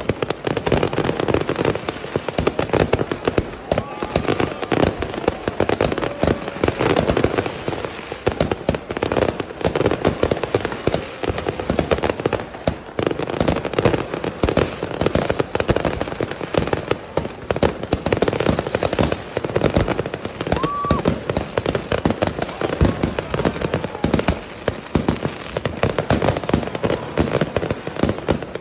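Fireworks and firecrackers going off nonstop, a dense, overlapping barrage of bangs and crackles with no let-up.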